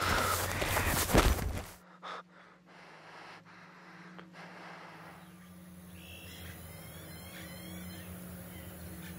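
A loud rushing noise lasts nearly two seconds, peaks sharply about a second in, then cuts off suddenly. A low steady hum follows, and from about halfway through faint bird chirps sound over it.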